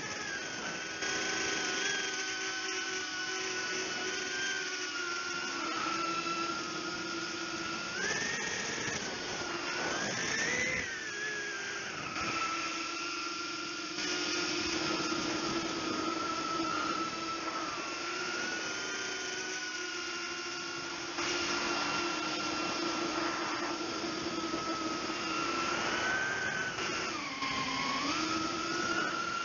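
Small 135 mm FPV quadcopter's motors and propellers whining in flight, heard up close from the onboard camera. The pitch shifts with throttle, rising briefly twice in the first half and dipping near the end.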